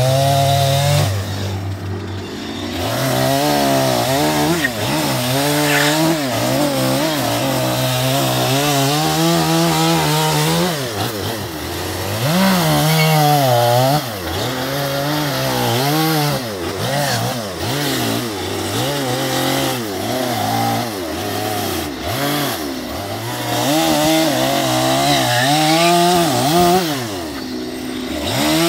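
Stihl two-stroke chainsaw cutting into a western red cedar log, its engine revving up and down as the throttle is worked through each cut. It drops back to idle briefly about a second and a half in and again near the end.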